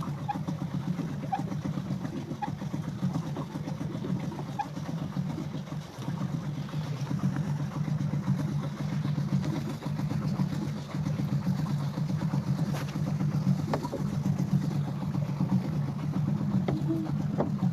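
Pedal boat's pedal drive and paddle wheel churning steadily: a continuous low, fluttering rumble with a few faint clicks.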